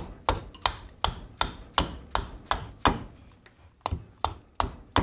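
Hand axe chopping into a green black walnut ladle blank: a quick, regular run of sharp wooden chops, about three a second, with a short pause a little after halfway.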